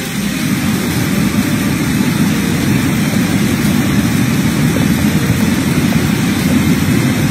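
Fast floodwater rushing through a street, a steady low rumbling rush of water with no let-up.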